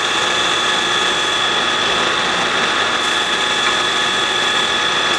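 Benchtop drill press running with a steady whine as a countersink breaks the edges of drilled holes in a UHMW plastic block.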